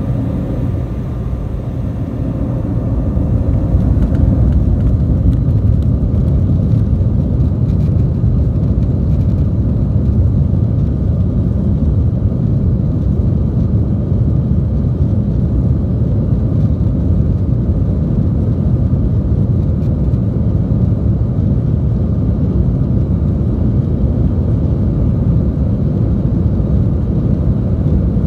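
Cabin noise of an Embraer 190 on its takeoff roll: the turbofan engines at high thrust and a heavy rumble from the wheels on the runway. It grows louder over the first few seconds, then holds steady.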